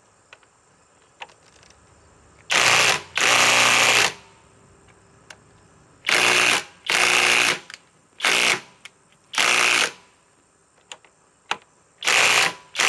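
Flex FX1431A compact cordless impact wrench hammering in about seven short bursts, trigger pulled and released repeatedly, on a stuck fastener that it does not break loose.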